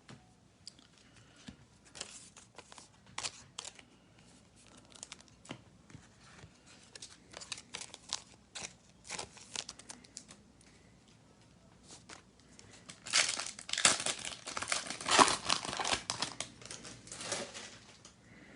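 Trading cards being handled with scattered light rustles and clicks, then a foil card pack wrapper crinkling and tearing as it is opened, loudest and densest for a few seconds near the end.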